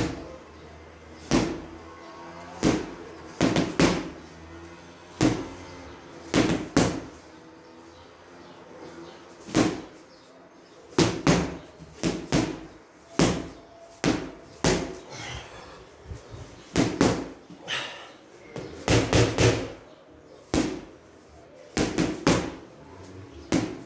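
Boxing-glove punches landing in an irregular series, some single and some in quick combinations of two to four, each a sharp slap.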